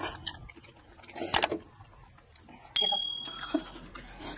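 Eating sounds at a table of stainless-steel tableware: a slurp from a spoon about a second and a half in, then a sharp metallic clink on steel that rings briefly at a high pitch near three seconds.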